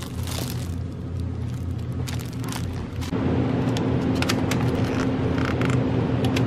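Store ambience: a steady low hum, louder after about three seconds, with plastic packaging rustling and clicking as packs are handled and a clear plastic clamshell pack is picked up.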